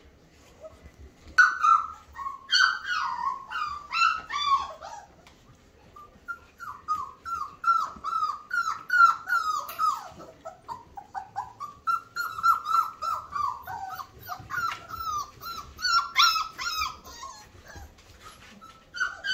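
Four-week-old flat-coated retriever puppy whining in a long run of short, high-pitched falling cries, several a second, with a brief pause partway through.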